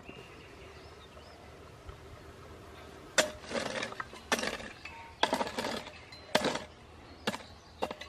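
Garden hoe striking the soil, several irregular chops starting about three seconds in, each a sharp clink of the metal blade followed by a short scrape.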